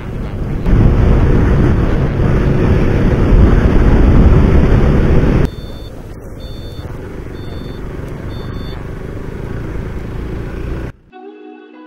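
Motorcycle riding noise, a steady rush of wind and engine, loud for the first five seconds and quieter after a cut, with faint short high beeps repeating about once a second. Guitar music comes in near the end.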